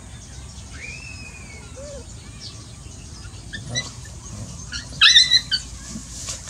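Puppies play-fighting, with a faint high whine about a second in and a short burst of sharp, high-pitched puppy yelps about five seconds in.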